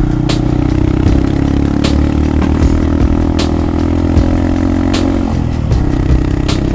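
Honda Monkey 125's single-cylinder engine, fitted with an aftermarket outex muffler, running steadily under way; its note dips briefly about five seconds in and then picks up again, with a few short sharp clicks along the way.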